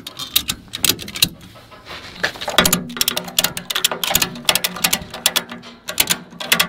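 Ratchet tie-down strap being cranked tight: quick runs of sharp metal clicks from the ratchet buckle with each stroke of the handle, cinching the strap down on the load.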